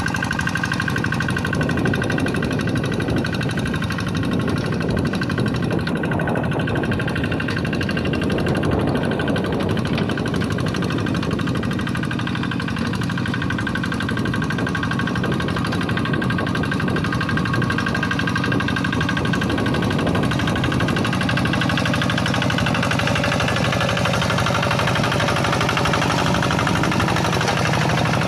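Kubota single-cylinder diesel engine of a Quick G1000 hand tractor running steadily. It has a rapid, even firing beat and a steady high whine above it.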